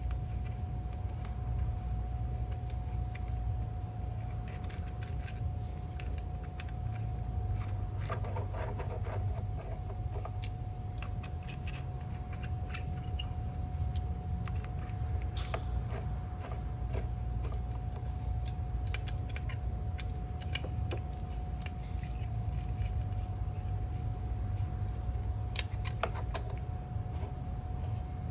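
Irregular metallic clicks and clinks of hand tools and bolts as a driveshaft carrier bearing support is bolted up. Under them runs a steady low hum with a faint steady whine.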